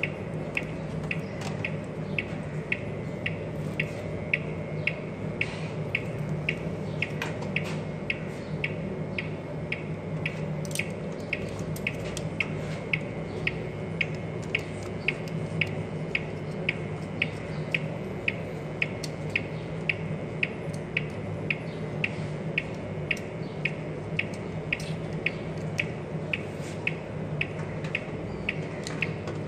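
Steady ticking, about two short clicks a second, each with a brief high ring, over a constant low hum.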